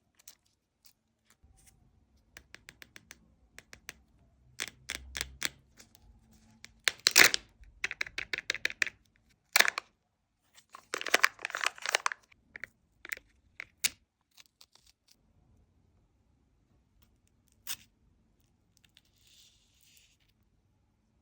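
Foil wrapper of a Kinder Surprise egg being torn and crinkled open by hand: a busy run of crackles and rustles, loudest in a few bursts through the middle, thinning to scattered clicks near the end.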